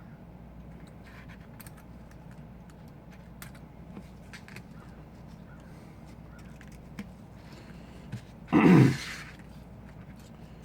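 Faint light clicks and taps of small tools and parts during smartphone disassembly, over a steady low hum. One short, loud burst of sound about eight and a half seconds in.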